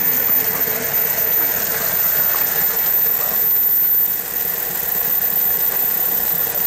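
Homemade metal lathe running, its motor and belt-driven headstock making a steady mechanical hum and rattle; the sound drops a little about four seconds in.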